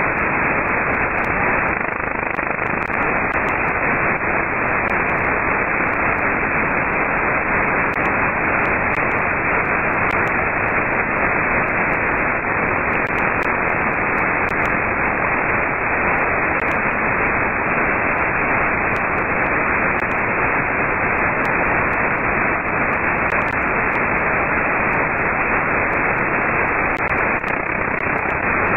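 Steady hiss of static from an RTL-SDR receiver working off a Kenwood TS-2000's 75 MHz IF, tuned across the 11-metre CB band, with no clear signal. Its sound cuts off sharply above about 2.6 kHz.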